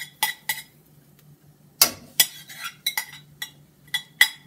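Cooking utensils clinking and scraping against a stainless steel pan while diced onion and bell pepper are stirred for sautéing. The strikes are irregular, with the loudest knocks about two seconds in.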